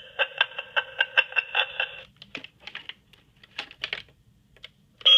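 Clicking sound effect from a Gemmy animated Victorian phone prop, played through its small tinny speaker: about five even clicks a second for two seconds, then a few scattered, quieter clicks.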